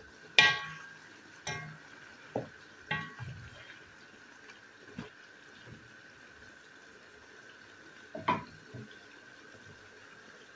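Wooden spatula stirring vegetables in a stone-coated pot: a handful of short knocks and scrapes against the pot, the loudest about half a second in and another about eight seconds in.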